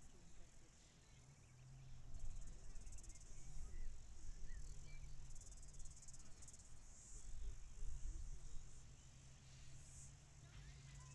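Insects chirring in a high, pulsing band that swells and fades in repeated bursts, over a low steady hum and rumble.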